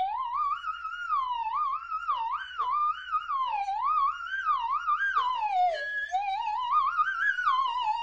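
Slide whistle played in a continuous, crazy run of quick up-and-down swoops, a single whistling tone sliding in pitch without a break, as a cartoon comic sound effect.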